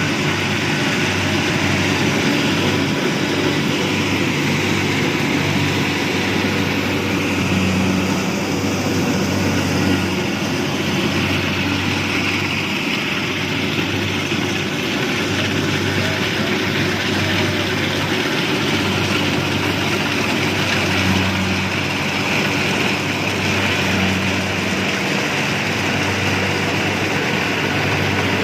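Rice combine harvester running steadily: a constant low engine drone under a broad mechanical whir from its working machinery.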